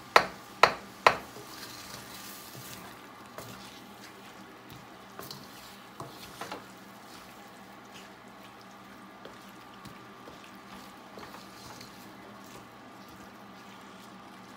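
Three sharp knocks in the first second or so, typical of a wooden spatula striking a wok, then food sizzling gently in the wok with a little sauce while the spatula stirs and scrapes, with scattered small clicks.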